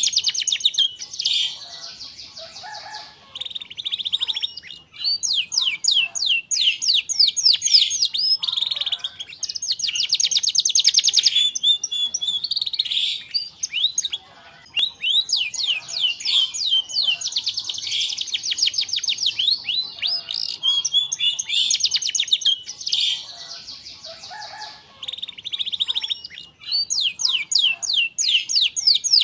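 Domestic canary singing a long, nearly unbroken song: runs of rapid repeated high notes (rolling trills) alternating with short whistled and warbled phrases, easing off briefly a few times before picking up again.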